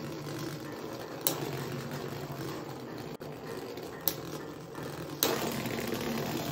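Two Beyblade X spinning tops whirring steadily as they circle on the stadium floor. There are sharp clicks of contact about a second in and around four seconds in, and a louder clash a little past five seconds that knocks them apart.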